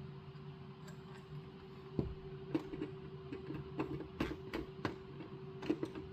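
Plastic building bricks clicking and knocking as the pieces of a modular brick building are handled. A string of irregular sharp clicks starts about two seconds in, over a steady low hum.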